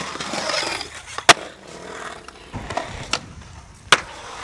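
Skateboard scraping along a concrete ledge, then a sharp, loud clack of the board hitting the ground about a second in. More board pops and clacks follow, with another sharp snap near the end.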